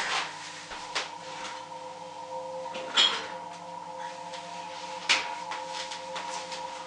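Kitchen things being handled: a few short sharp knocks, the loudest about three and five seconds in, over a steady hum.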